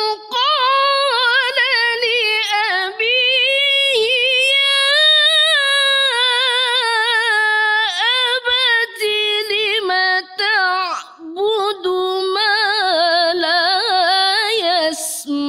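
A woman reciting the Quran solo in the melodic tilawah style. Her high, ornamented voice holds long notes and winds through quick melismatic turns, pausing briefly for breath a few times.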